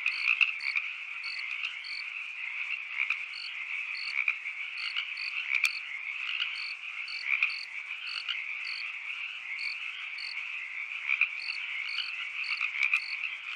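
A dense, steady chorus of frogs calling, with crickets chirping above it in short chirps about twice a second.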